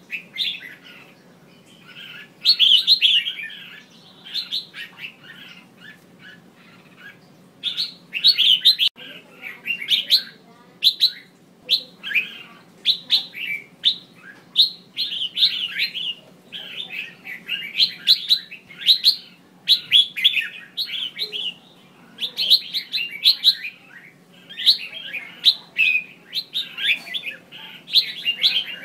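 Female red-whiskered bulbul calling in quick bursts of short chirpy notes. There is a pause of a few seconds after the opening phrases, and then near-continuous calling. A faint steady hum runs underneath.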